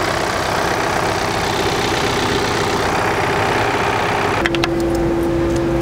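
John Deere 4066R compact tractor's diesel engine running steadily. About four and a half seconds in the noise drops and a steady hum remains.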